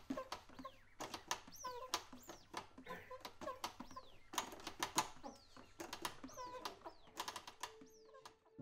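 Record scratching on a DJ turntable and mixer: a choppy run of quick back-and-forth scratches, many sharp cuts and sweeping pitch glides, mostly falling. It stops abruptly near the end.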